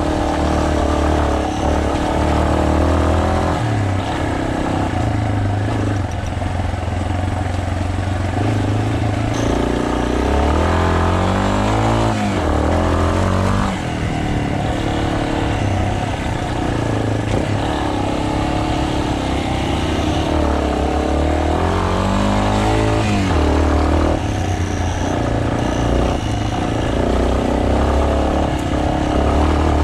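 Single-cylinder trail motorcycle engine running on a forest road, the engine note rising and falling as the throttle opens and closes, with a couple of marked pitch swings partway through.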